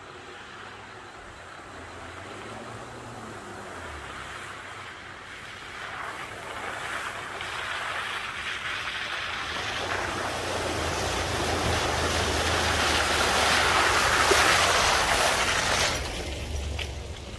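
Nissan truck driving through a mud puddle: the engine hums low under the spray and churn of water and mud, growing louder to a peak and then dropping off suddenly near the end.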